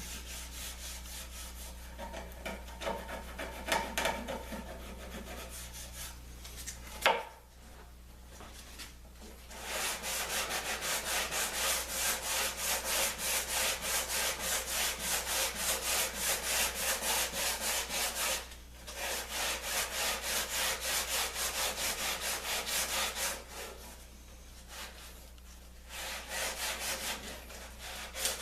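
A hand tool worked back and forth on wood in quick, even strokes, about three a second, flushing up the laminated edges. The stroking starts about ten seconds in, breaks off briefly near the middle, stops a few seconds later and starts again at the very end. Before it there is lighter scraping and one sharp knock.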